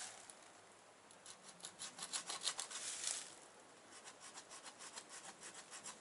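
A handsaw cutting through a tree branch in quick back-and-forth strokes, in two runs with a short pause about halfway through.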